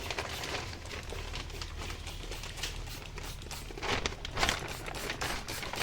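Scattered clicks and knocks of parts being handled during split air-conditioner cleaning work, over a low steady hum.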